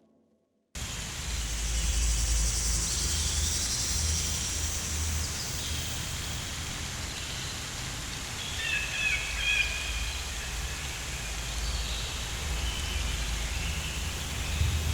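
Open-air ambience with a low wind rumble on the microphone, a steady high insect drone, and a few short bird chirps in the middle.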